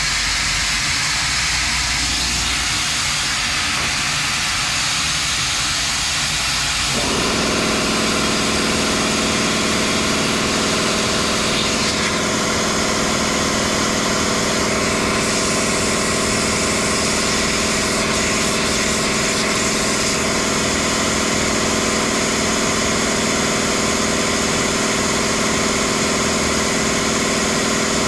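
Flatbed laser engraver running with a steady, loud hiss. About seven seconds in, a steady hum of several tones joins it.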